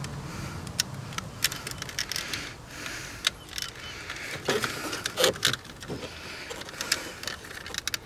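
Irregular small clicks and snaps of plastic as a screwdriver is worked along the Traverse's master power-window switch and its plastic bezel to free the switch from its tabs, over a faint low hum.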